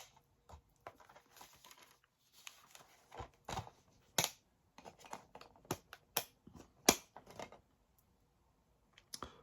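Plastic DVD case and discs being handled: a string of sharp clicks and snaps with short rustles as discs are lifted off the hubs and the case trays are turned, the loudest clicks about four, six and seven seconds in.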